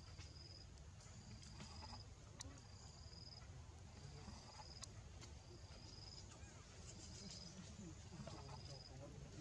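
Faint insect calling: a short, high, steady-pitched buzz repeated every second or so, over a low rumbling background with a few faint clicks.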